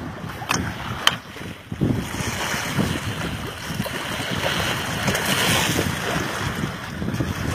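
Wind buffeting the microphone over the rush and splash of water along a moving sailboat's hull, with two short ticks about half a second and a second in.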